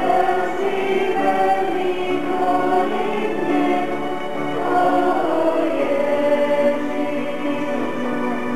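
Choir singing a hymn in held notes that move from one pitch to the next.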